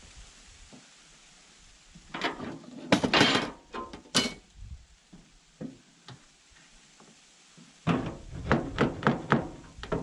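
Knocks and thuds on wood from building work, in two bursts: an uneven cluster about two seconds in, and a quicker run of sharp knocks, about four a second, near the end.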